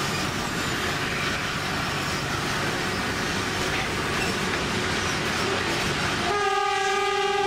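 St. Kitts Scenic Railway train running along the track with a steady rumble of engine and wheels. About six seconds in, the train's horn starts one long, steady blast.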